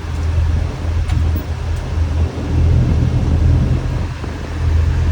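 Kawasaki Ridge XR side-by-side's inline-four engine running as it drives, a steady low rumble that eases off and picks up again a few times with the throttle, swelling near the end.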